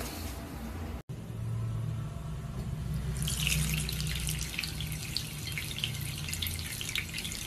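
A thin stream of water running from a bathroom sink tap and splashing onto a cat lying in the basin. The splashing starts about three seconds in and then runs steadily, with many small drips and patters.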